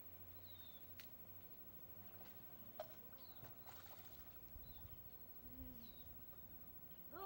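Near silence: a faint steady low hum with a few faint, short, high chirps falling in pitch and scattered soft clicks.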